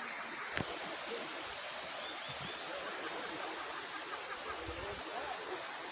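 River water running steadily, an even rushing noise, with one brief click about half a second in.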